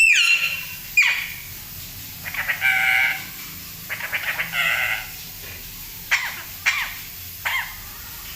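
Parrot vocalising: short sharp squawks, some falling in pitch, and two longer rasping bursts about two and a half and four and a half seconds in, the bird's imitation of a human cough.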